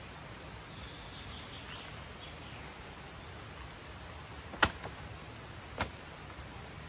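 Faint bird chirps over a steady forest background, then two sharp knocks about a second apart from dry sticks being handled, the first the louder.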